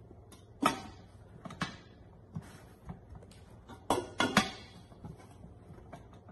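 Glass pot lid clinking and knocking against the rim of a metal cooking pot as it is handled and fitted on: a handful of sharp knocks with a short ring, the loudest a close pair about four seconds in.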